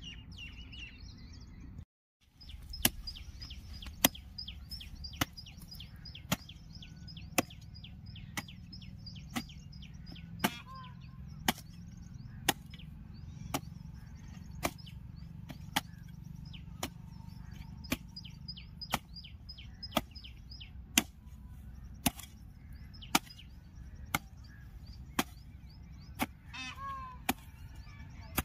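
Broad-bladed digging hoe (phawda) striking hard, cloddy soil in steady strokes, about one sharp chop a second, with birds chirping throughout.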